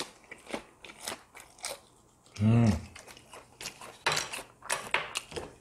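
Close-miked crunching and chewing of a battered, deep-fried giant chili pepper stuffed with meat, glass noodles and vegetables: a run of short crisp crackles and bites. A short hummed "mm" comes about halfway through.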